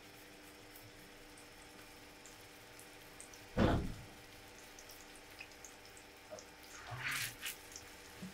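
Lamb kofta sizzling faintly in oil on a hot plate, with small scattered pops. There is a dull thump about three and a half seconds in, and a louder burst of sizzling near the end as a second kofta goes down on the plate.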